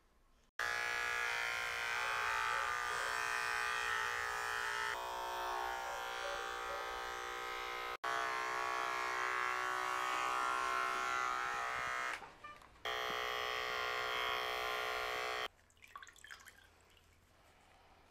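Electric pet hair clippers running with a steady hum as they shave the fur away around a dog's hot spot. The hum breaks off and restarts abruptly a few times, then stops a few seconds before the end.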